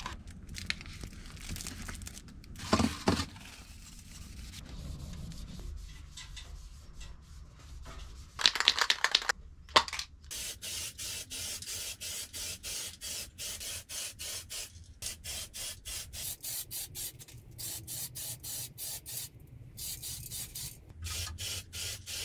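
Aerosol spray paint can spraying in many short hissing bursts, about two to three a second, starting about ten seconds in. Before that there is quieter handling noise and a short loud clatter.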